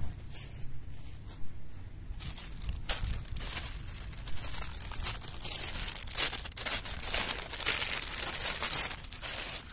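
Clear plastic packaging bag crinkling and crackling as hands handle it and pull it open to take out a fabric hanging storage pocket. The crinkling is sparse at first and grows busy from about two seconds in.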